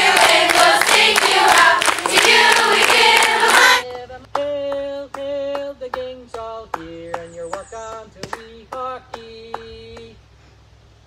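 The camp welcome song sung by a group of voices with rhythmic hand clapping. About four seconds in, the singing thins to a single voice holding slower notes over the claps, and it ends about ten seconds in.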